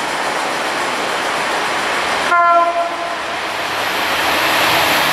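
Approaching Class 68 diesel locomotive sounds its horn once, a short blast a little over two seconds in. Around it runs a steady rushing noise that grows louder near the end as the train draws close.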